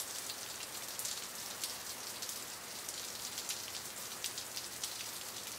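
Steady hiss of water with a fine crackle of many tiny ticks, like water rippling or rain pattering.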